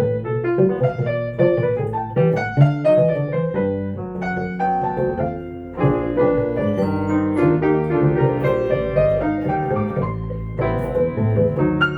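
Jazz piano and bass duo playing a slow tune: piano chords over sustained low bass notes, with a short lull about halfway through before a fresh chord.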